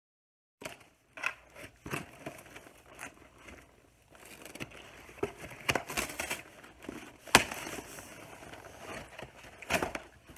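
Cardboard doll box and its packing tape being torn open by hand: irregular ripping, scraping and crackling, with a sharp snap about seven seconds in.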